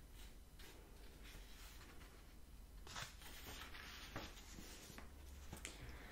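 Faint rustle of a paperback book's paper pages being handled and turned, strongest from about three to five seconds in, with a few soft clicks.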